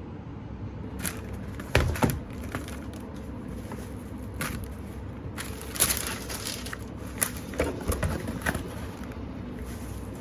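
Scattered sharp clicks and knocks of objects being handled, over a steady low hum; the loudest come as a pair about two seconds in, with more around six and eight seconds.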